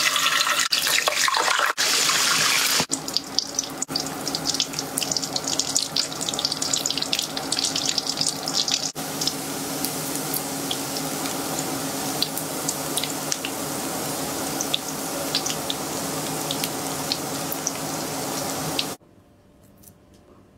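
Scored sausages frying in hot oil in a wok: a steady sizzle full of sharp pops and crackles, loudest in the first few seconds as a frozen sausage goes into the oil. It stops suddenly near the end.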